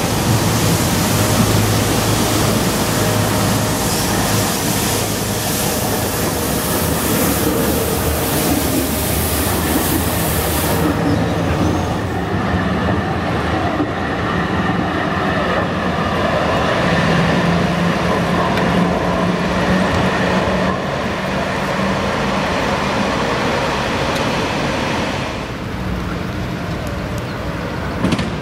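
Düwag GTW-D8 articulated tram running on street track: wheels rolling on the rails with a broad hiss. After an abrupt change about eleven seconds in, there is a steady motor hum and whine as the tram passes close by.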